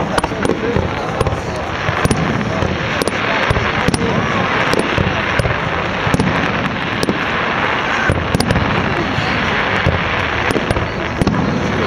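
Fireworks display going off: many sharp bangs and crackles in quick, irregular succession over a continuous loud hiss.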